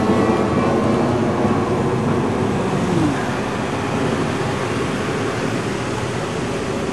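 Thunder Tiger Champion-30L RC model airplane's engine buzzing steadily in flight, its pitch dropping once about three seconds in.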